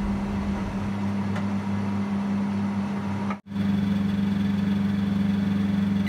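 BPL microwave oven running in convection mode, a steady low hum that drops out for an instant a little over three seconds in, then carries on unchanged.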